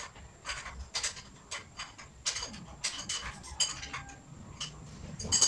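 Irregular light metallic clinks and taps, one to three a second, from metal tools and bicycle parts being handled; the sharpest clink comes near the end.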